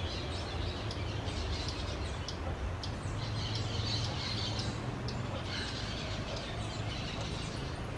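Pygmy parrots giving short, high-pitched chirps in bursts, over a steady low rumble.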